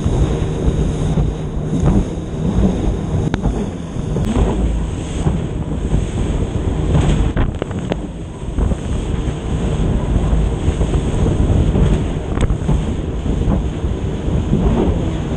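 Wind buffeting the microphone and spray slapping against a jet ski's hull as it runs fast over choppy water, with the engine's steady drone underneath.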